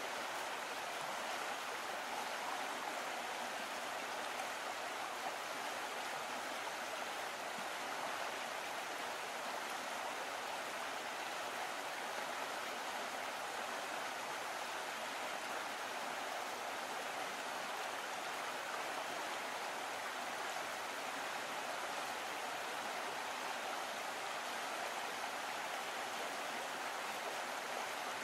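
Steady, even rushing noise with no distinct calls, tones or knocks.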